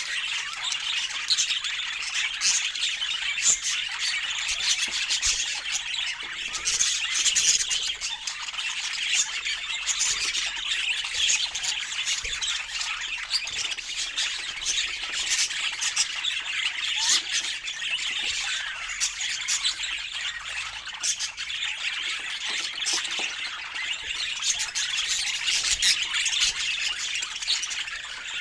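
Budgerigars chattering without pause, a dense run of short chirps, warbles and squawks.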